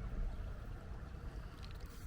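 Wind rumbling on the microphone during a walk along a wooded trail, with a few light crunching steps on leaves near the end.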